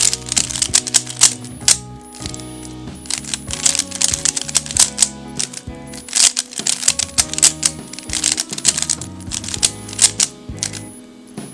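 Plastic 3x3 speedcubes being turned fast, giving dense runs of rattling clicks that last a second or two each with short pauses between. The cubes are being turned so that the sound of different cubes can be compared.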